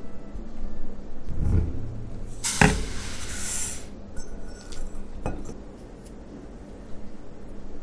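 Granulated sugar poured from a small stainless steel cup into a pan: a dry hiss lasting about a second and a half, with a sharp metal clink as the pour begins. A few light clinks of dishes follow.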